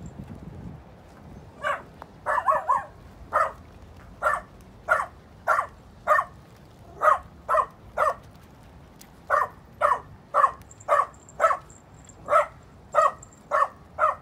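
A dog barking repeatedly, about twenty sharp barks at roughly two a second, beginning about two seconds in, with a quick burst of three barks early in the run.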